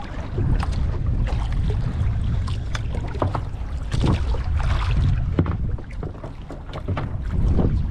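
Wind buffeting the microphone on a small wooden outrigger boat on choppy sea, with many short splashes and knocks of water and gear against the hull.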